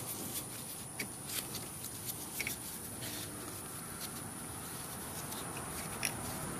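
Faint rubbing and a few light clicks as gloved hands fit rubber shock bushings and washers onto a golf cart's lower rear shock stud.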